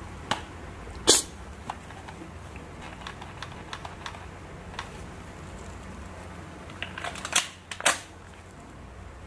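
Hard plastic clicks and clacks from a toy pistol being handled and worked: a click right at the start, a loud sharp one about a second in, light ticks through the middle, then a quick run of clicks ending in another loud clack near the end.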